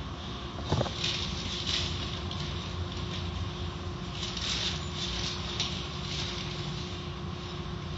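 Automatic car wash running: water and foam splashing and hissing over a car under an overhead foam applicator and cloth strips, with a steady machine rumble and hum. A sharp knock comes just under a second in.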